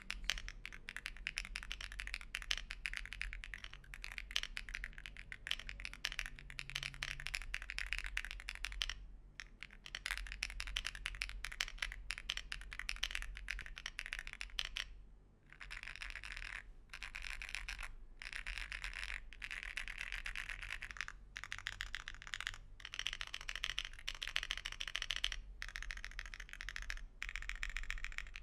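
Typing test on a mechanical keyboard fitted with Akko V3 Cream Yellow Pro linear switches: rapid runs of keystroke clacks, broken by a short pause about nine seconds in and a longer one about fifteen seconds in.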